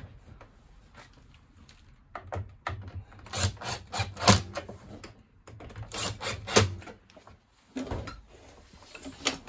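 Clicking, rattling and knocking of the tumble dryer's plastic parts and screws being handled and fitted, in several short clusters with pauses between.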